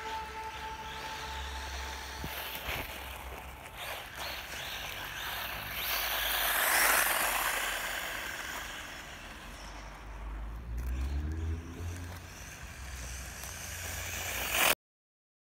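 A 1:18 RC buggy with a Racerstar 2435 brushless motor drives on fine gravel: tyre crunch mixed with motor whine. It grows loudest as the car passes close about seven seconds in, and the motor whine rises briefly near the eleven-second mark. The sound cuts off abruptly just before the end.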